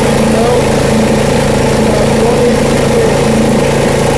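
A Snapper riding mower's engine running steadily, driving the deck belt and pulleys on a newly replaced spindle.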